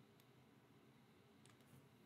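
Near silence: faint room tone with a few very faint clicks.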